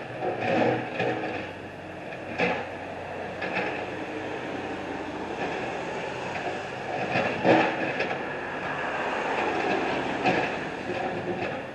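Heavy construction machinery working: repeated metallic clanks and knocks over a steady engine hum.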